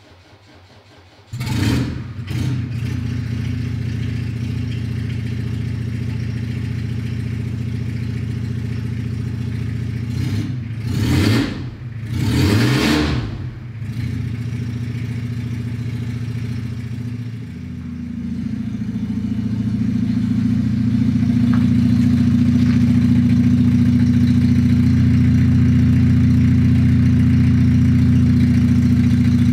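Iveco Daily 35-8 van's diesel engine starting about a second in and running, revved twice, then growing louder as the van drives up to the workshop door and idles there.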